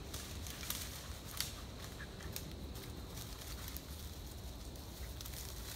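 Dry leaf litter crackling and rustling underfoot in irregular crunches, the sharpest about one second in, as a beagle and the person filming move through the woods.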